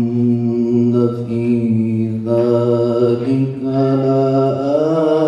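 A man chanting a solo religious recitation into a microphone, with long drawn-out melodic notes broken by brief pauses. The pitch climbs higher near the end.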